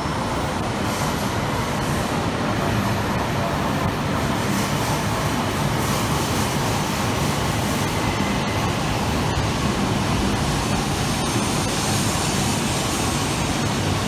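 E5 series Shinkansen train pulling into the platform: a steady rumble and rush as the cars glide past, with a few faint clicks.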